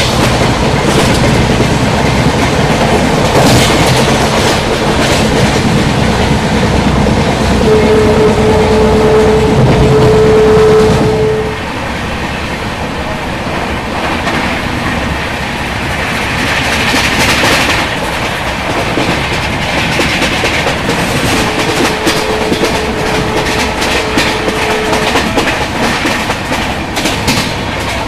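Train running at speed, heard from the open doorway of an LHB coach: steady rumble and clickety-clack of the wheels over the rails. A horn holds one steady note twice, for several seconds about eight seconds in and more faintly about twenty-one seconds in.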